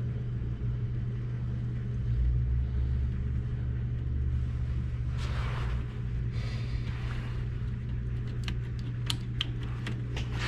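Blower fan of an old gas furnace running with a steady hum and low rumble. A few light clicks of handling near the end.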